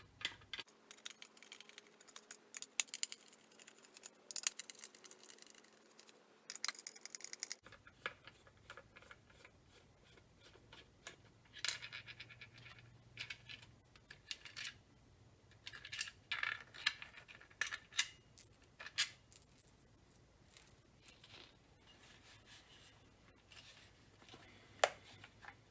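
Torx head screws being backed out of a plastic rifle stock's forend with a T15 driver and set down: scattered clicks, scratching of the bit in the screw heads and light metallic taps of small screws.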